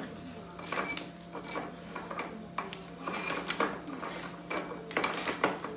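Kitchen utensils clattering and clinking against each other and a glass utensil holder as they are rummaged through, in a string of short knocks and clinks.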